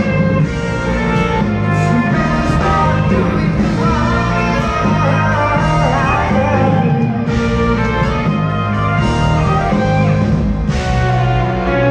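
Live progressive rock band playing: electric guitar, bass, drums and keyboards, with a singing voice.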